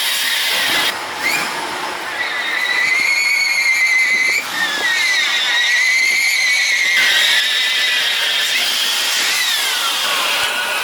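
2002 GMC Sierra's starter motor cranking its Vortec engine in the cold, a high wavering whine, in several separate attempts that each wind down with a falling pitch. The engine does not catch: a cold no-start.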